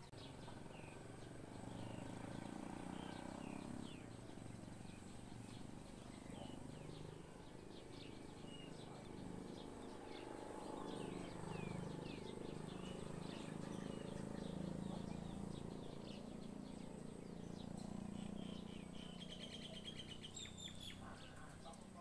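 Common myna nestlings begging in the nest: short, high, mostly falling chirps repeated irregularly, with a denser run of calls near the end, over a low background rumble.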